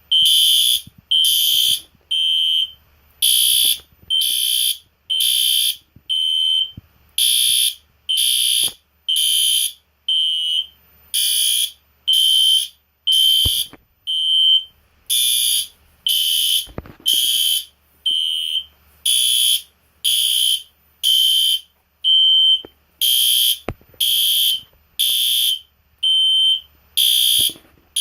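Two System Sensor SpectrAlert fire alarm horn strobes, an Advance and a Classic, sounding together, very loud. Their horns blast in pulses about a second apart, mostly in groups of three with a different-sounding pulse in each fourth slot, in a repeating evacuation pattern.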